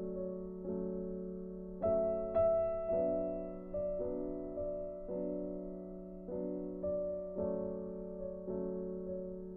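Background music: a soft, slow piano-like keyboard melody with sustained chords, notes struck about once a second.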